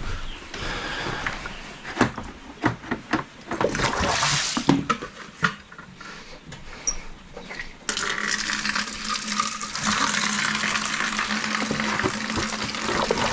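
A few knocks and clatters, then about eight seconds in water starts running steadily into a container as a chick waterer is filled.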